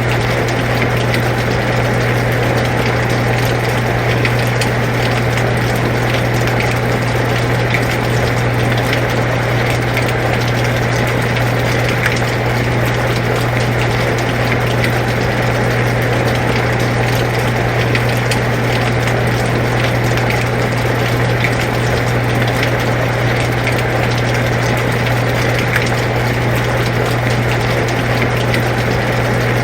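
Air conditioner running with a steady low hum, over rain falling as an even hiss with scattered drop ticks.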